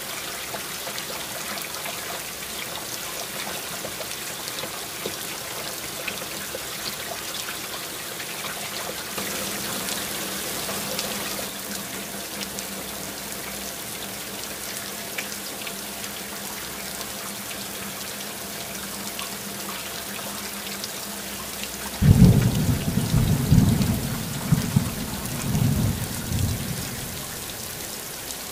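Heavy rain falling steadily in a downpour. About three-quarters of the way through, a loud, low rumble of thunder comes in suddenly and rolls in several surges for around five seconds.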